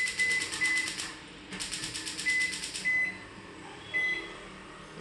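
Häfele built-in oven's touch control panel giving short high beeps, about five, as its keys are pressed. Two runs of rapid even ticking, about nine a second, fill the first three seconds.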